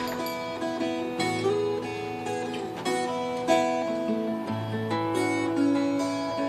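Acoustic guitar fingerpicked in an instrumental break between sung verses: a plucked melody over held bass notes.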